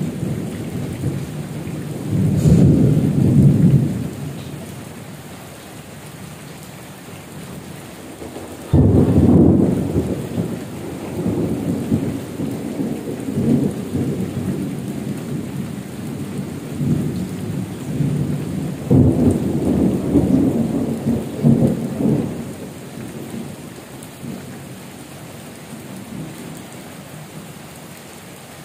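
Heavy rain falling steadily, with thunder rumbling three times: briefly about two seconds in, then a sudden loud peal near nine seconds that rolls on for several seconds, and again around nineteen seconds.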